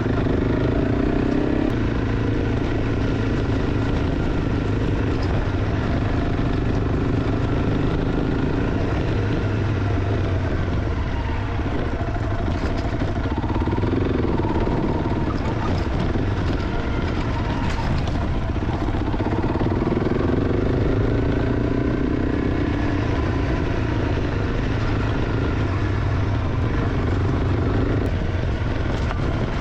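Honda CRF300 Rally's single-cylinder engine, fitted with an aftermarket exhaust, running as the bike rides along. Its note rises and falls repeatedly with the throttle.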